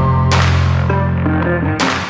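Background music: a held low bass note under sustained chords, with heavy drum and cymbal hits about a third of a second in and again near the end.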